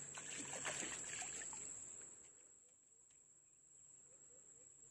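Faint, steady high-pitched trilling of insects, unbroken, with a few faint scattered sounds in the first couple of seconds.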